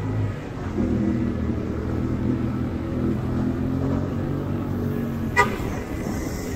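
Motorcycle engine running at steady low revs in city traffic, with one short vehicle horn beep about five seconds in.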